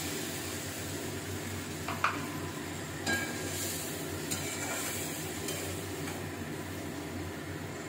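Spatula stirring a fried spice paste in a kadai on a gas stove just after a little water has gone in, with a steady sizzle and a few knocks of the spatula against the pan.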